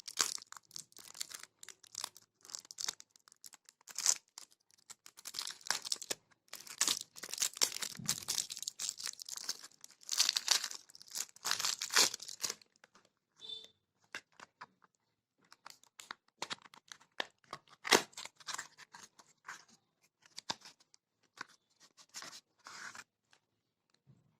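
Packaging being torn open and crinkled by hand: a dense run of ripping and rustling that stops about halfway through, giving way to scattered rustles and light clicks.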